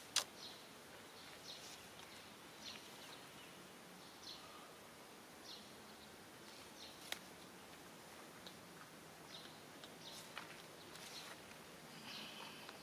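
Faint outdoor ambience with short, high-pitched chirps about every second. Two sharp clicks sound, one just after the start and one about seven seconds in.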